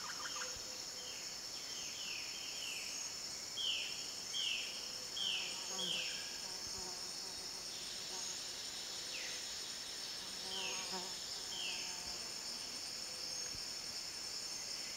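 Tropical forest insect chorus, a steady high-pitched drone, with a run of short falling calls about once a second in the first half and a few more later on.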